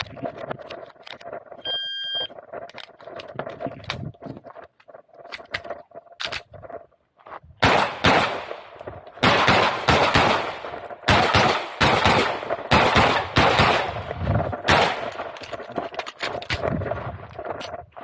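An IPSC shot timer's start beep about two seconds in, then from about seven and a half seconds a fast string of Glock pistol shots, many shots a second with short pauses between strings.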